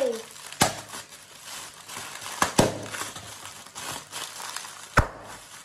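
Plastic air-cushion packaging crinkling as it is squeezed, with four sharp pops as the air pillows burst: one about half a second in, a quick pair near the middle, and one near the end.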